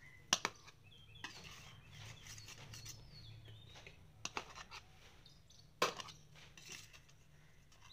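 Kitchen knife clicking and scraping against a steel plate while slicing a soft semolina cake: a few sharp clicks, two close together near the start and single ones about four and six seconds in.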